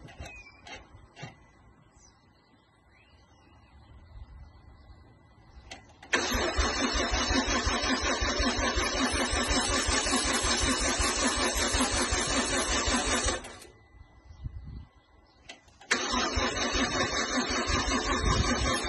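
DeLorean DMC-12's engine being cranked by its starter motor in two long, steady bursts: about seven seconds from about six seconds in, then a pause, then a second crank near the end. It does not catch; the owner says the fuel system has to be bled.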